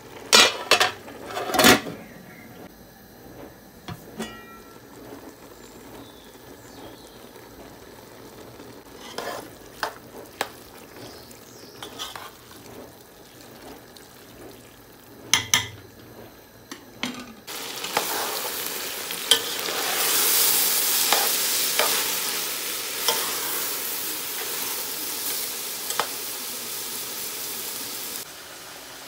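A metal spoon stirs and scrapes chicken mince and peas in a steel pot, with scattered clinks and knocks against the pot. Partway through, a loud steady sizzle of the mince frying sets in, and it cuts off suddenly near the end.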